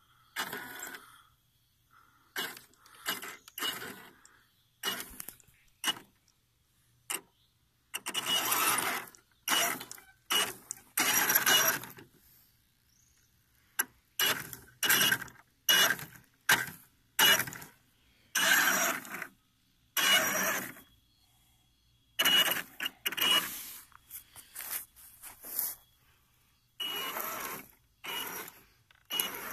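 Small electric motor and gearing of a 1/8-scale RC4WD crawler running in about twenty short bursts, each a fraction of a second to about a second and a half, stopping and starting again. A thin, steady high whine runs through some of the bursts.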